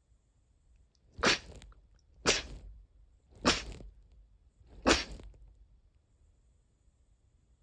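Four sneezes in quick succession, about a second apart, each a sudden sharp burst that fades quickly.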